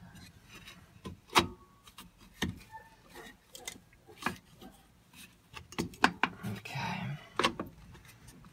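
Metal clicks and knocks of drum brake shoes and their spring hardware being worked into place on the backing plate by hand: about half a dozen sharp clicks spread through, the loudest about a second and a half in.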